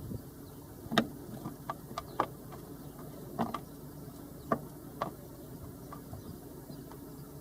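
Green woodpecker pecking: irregular sharp taps, about one a second and sometimes two in quick succession, over a faint steady low hum.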